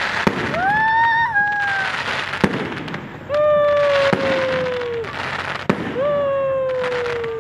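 Aerial fireworks going off: several sharp bangs about every one and a half to two seconds over continuous crackle. Three long tones slide in pitch over it, one rising then falling and two sinking slowly.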